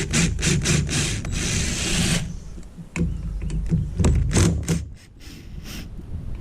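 Hand socket ratchet clicking in quick bursts as bolts are backed out of a Honda 400EX ATV engine's clutch cover, with a brief scrape between the runs of clicks.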